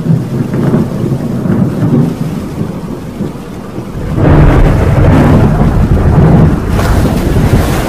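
Thunderstorm sound effect: steady rain with rumbling thunder, which swells into a louder, deep rumble about four seconds in and lasts some three seconds.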